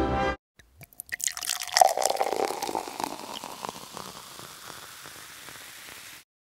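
Beer poured into a glass: a splashy pour that peaks about two seconds in, then a fizz that fades away and cuts off abruptly near the end.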